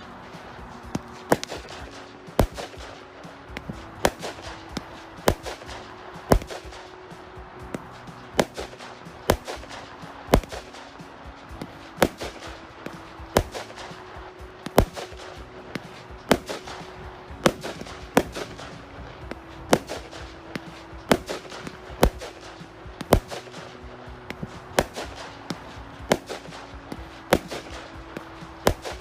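A 25-shot, 20mm-bore firework barrage cake firing its shots one after another, a sharp bang roughly every second.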